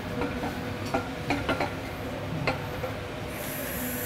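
A 6-inch pipe and 90° elbow being rotated by hand on pipe jack stands: a series of light metal clicks, knocks and scraping, over steady background noise. A high hiss comes in near the end.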